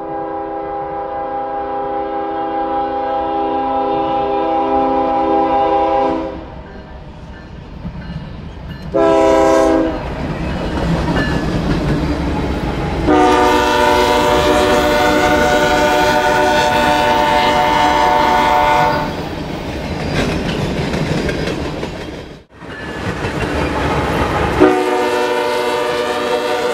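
Freight train locomotive's multi-tone air horn sounding a series of blasts: two long ones of about six seconds, a short one in between, and another long blast near the end. Under the horn runs the steady rumble and rail clatter of the passing train, and the sound breaks off abruptly a few seconds before the last blast.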